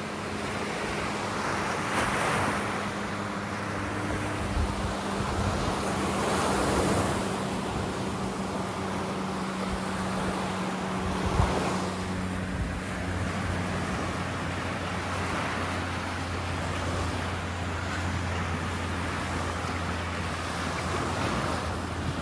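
Ocean surf washing ashore in swells about every four to five seconds, with a steady low hum underneath.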